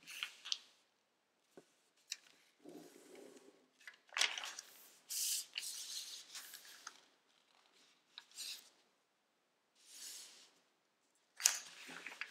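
Origami paper rustling and crinkling as fingers fold it and press along its creases: a string of short swishes and scrapes, with a sharp crackle near the end.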